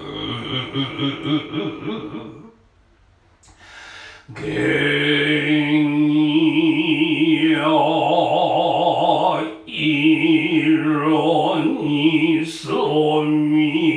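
Noh chanting (utai), unaccompanied, in a low male voice holding long notes with a heavy wavering vibrato. There is a short pause for breath about three seconds in.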